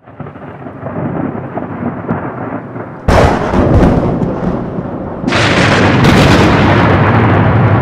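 Thunder sound effect: a muffled rumble, then a sharp thunderclap about three seconds in, and a second loud crack about two seconds later that rolls on.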